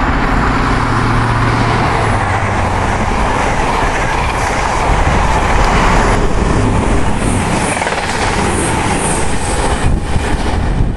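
High Speed Train (InterCity 125) passing close at speed: the leading diesel power car's engine hum fades in the first two seconds under the loud rush of wheels on rail and air from the coaches. The rush eases after about six seconds as the train clears.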